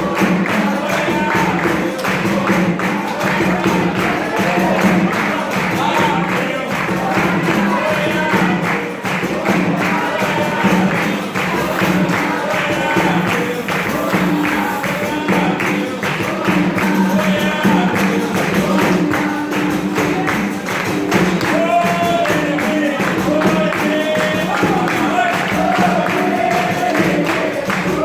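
Capoeira roda music: pandeiro and other percussion keeping a steady, even rhythm, with singing over it.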